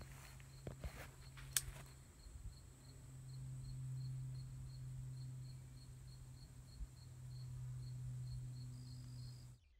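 Quiet field ambience: a faint insect chirping, repeating a few times a second, over a low steady hum, with one sharp click about one and a half seconds in. The sound cuts off suddenly near the end.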